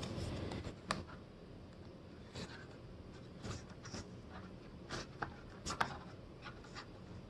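Game cards being handled and slid against the slotted cardboard screen of the Decrypto board game: light scraping with a few faint clicks.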